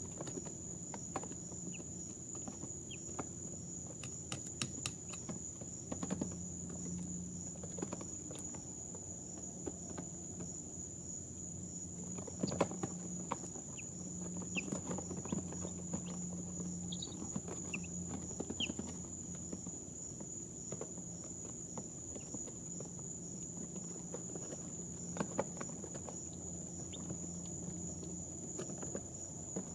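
Two-day-old chicks in a brooder: a few brief, soft peeps and scattered small taps and scratches, over a steady high-pitched whine and a low hum.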